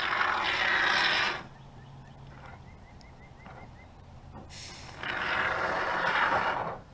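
Aerosol can of Great Stuff Gaps & Cracks expanding foam hissing as foam is sprayed through its straw applicator, in two bursts: one lasting about a second and a half at the start, and a longer one of about two seconds from about four and a half seconds in.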